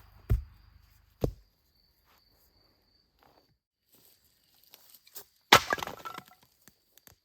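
Dry wood being knocked and snapped: two sharp knocks near the start, then a loud crack with about a second of splintering crackle.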